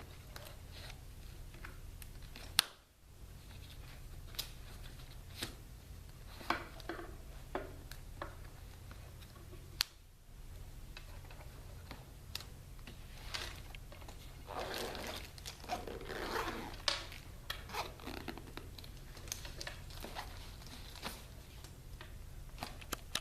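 Scattered clicks, taps and rustling of objects being handled, with the sharpest click about two and a half seconds in, over a steady low hum.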